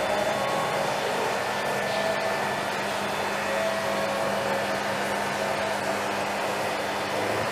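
Steady rushing machine noise with a constant low hum.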